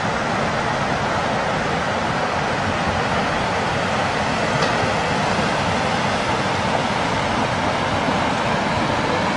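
Tsunami floodwater rushing through streets and trees: a loud, steady rush of water noise that does not let up.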